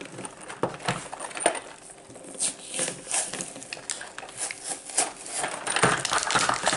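Stiff plastic blister packaging of a toy pack crackling and clicking as it is twisted and pried at by hand, in a run of short, sharp crackles.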